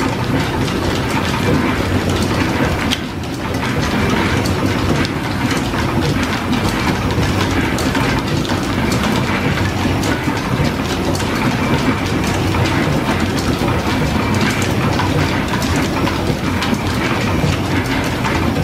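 Belt-driven metal shaper running, its ram stroking back and forth as the tool cuts, with a steady rhythmic clatter of the machine and its line-shaft drive.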